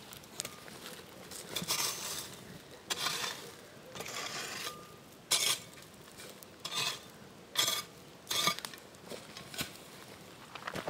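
Footsteps crunching and rustling on dry leaves, pine needles and twigs of the forest floor, in irregular bursts about a second apart.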